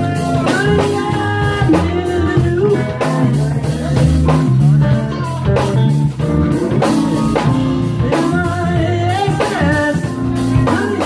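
Live blues band playing: electric guitar over keyboard, with drums keeping a steady beat.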